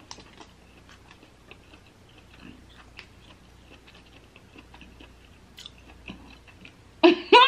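A person chewing king crab meat, with soft scattered mouth clicks and smacks. About seven seconds in there is a short loud voiced sound.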